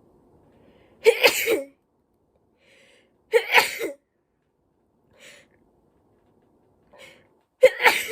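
A person sneezing three times in a row, a few seconds apart, each sneeze a short explosive burst. The sneezes are set off by tickling the inside of the nose with a koyori, a twisted paper string.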